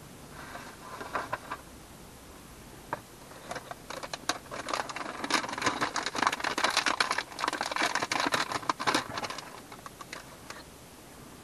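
Thin plastic kit pieces clicking and crackling as they are poked out of their plastic card and handled. A few separate clicks come first, then a dense run of rapid clicks through the middle, thinning out near the end.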